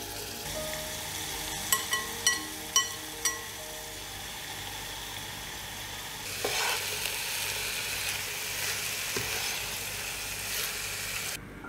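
Chicken pieces and sliced red onion sizzling in hot oil in a frying pan. About two seconds in, a metal spoon clinks against a glass bowl about five times, each clink ringing briefly, as the chicken is scraped into the pan. From about six seconds the sizzle grows louder as the chicken is stirred.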